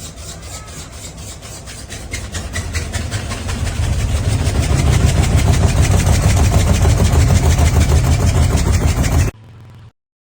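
Front-loading washing machine running, a low rumble with a fast, even rattle that grows steadily louder from about two seconds in, then cuts off suddenly near the end.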